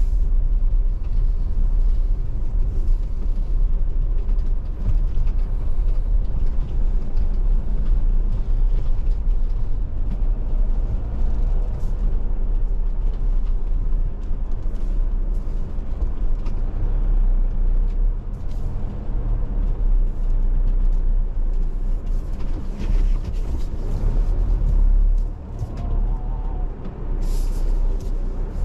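Wind buffeting the microphone: a loud, continuous low rumble that gusts up and down, easing briefly about 25 seconds in.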